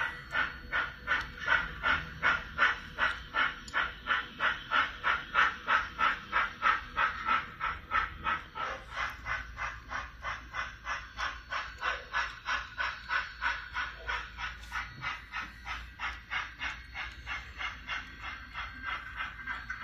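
Model train on a layout running with a steady, rhythmic clicking, about three clicks a second, as a long string of short tank cars rolls along the track.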